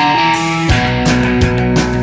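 Rock music with guitar. Under a second in, drums and bass come in with a steady beat.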